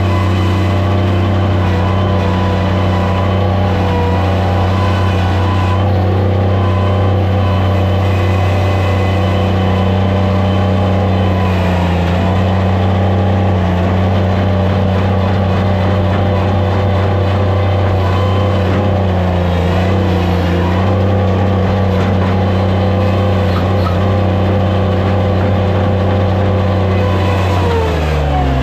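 Skid steer loader's engine running steadily, its pitch dipping slightly now and then, then falling sharply near the end.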